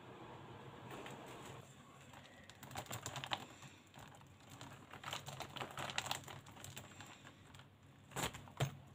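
Plastic alcohol markers clicking and clattering against each other in quick runs of light clicks as they are handled and sorted through, with a couple of sharper knocks near the end.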